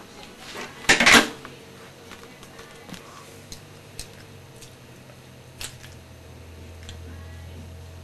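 Hard kitchen items clattering as a hand mixer and its parts are handled: a loud clatter about a second in, then scattered light clicks and knocks. The mixer does not run.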